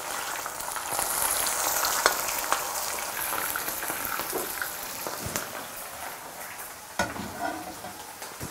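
Cornstarch-coated okra pieces deep-frying in hot vegetable oil in a stainless steel pan: a steady sizzle, with a couple of sharp clicks.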